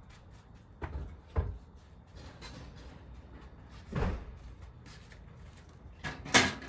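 A few separate knocks and clunks of hard objects being handled, the loudest about four seconds in and just before the end.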